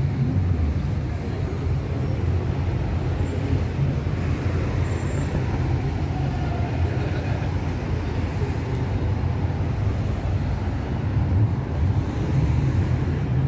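Steady low rumble of street traffic noise along a city road.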